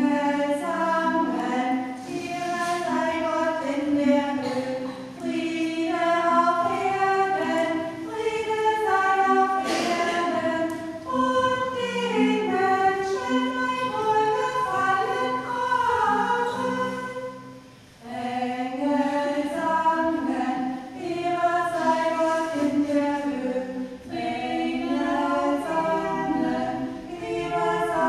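A group of voices singing a song together, phrase by phrase, with short breaks between lines and the longest break about two-thirds of the way through.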